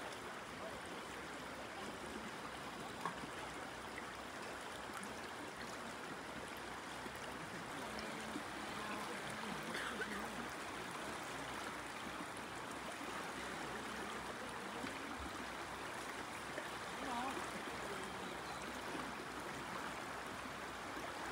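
River current flowing: a steady, even wash of moving water.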